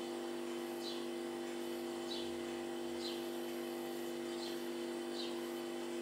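House sparrows chirping: about five short, falling chirps spaced roughly a second apart, over a steady low hum.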